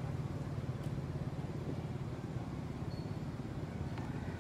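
Steady low hum of a motor vehicle engine running, over outdoor background noise.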